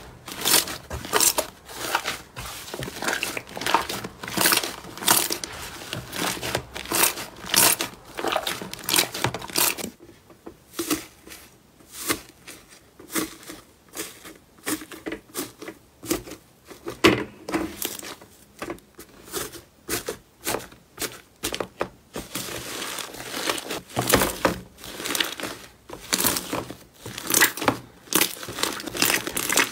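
Hands squishing and kneading fluffy slime: a fast run of sticky crackles and pops as air is pressed out of it. It goes quieter and sparser for a stretch in the middle, then crackles densely again near the end.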